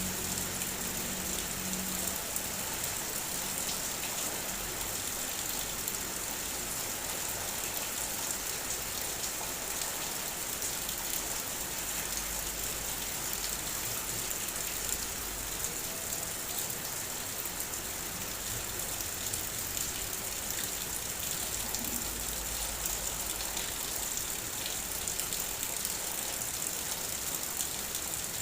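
Heavy rain falling steadily: an even hiss with no breaks or distinct events.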